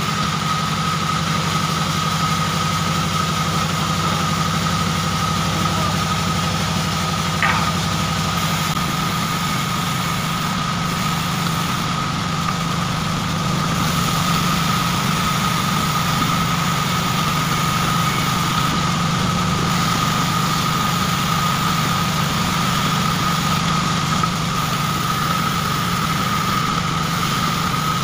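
A sawmill band saw runs steadily as wooden planks are fed through the blade and ripped into boards. There is a constant high whine over a low machine hum, and the hum turns rougher about eight seconds in.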